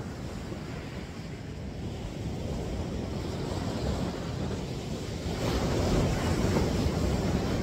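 Ocean surf washing on a beach, with wind buffeting the microphone. A bigger wave breaks about five and a half seconds in, and the wash grows louder.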